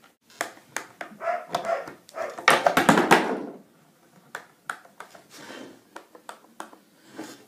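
Scattered light clicks and knocks from handling skateboard hardware while tightening the bolts, with one louder rasping noise lasting under a second about two and a half seconds in.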